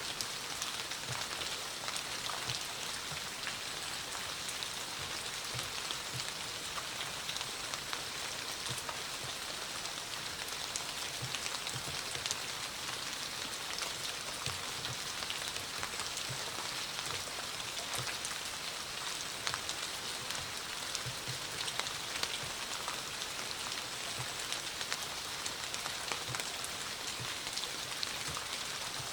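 Steady autumn rain falling: an even hiss of rainfall with many individual drops ticking through it and scattered dull low drips.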